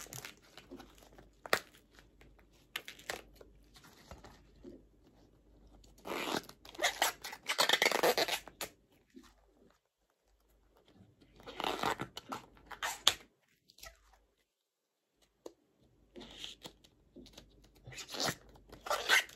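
Tough outer bracts of a banana blossom being peeled and snapped off by hand: crunching, tearing sounds in three main bursts of a second or two each, with scattered sharp snaps and quieter rustling between.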